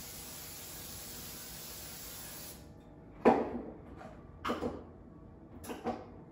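Aerosol cooking spray hissing steadily onto a metal baking sheet, stopping after about two and a half seconds. Then the sheet clanks three times as it is handled at the oven.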